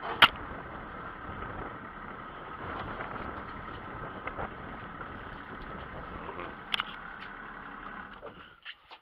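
Small fishing boat's engine idling steadily, then cutting off about eight and a half seconds in. A sharp knock comes just after the start and another near seven seconds.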